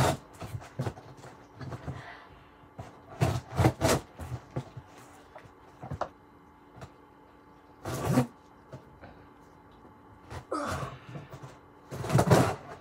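A package being opened and handled by hand: irregular rustling, scraping and sharp knocks. The loudest bursts come about three seconds in, around eight seconds and near the end.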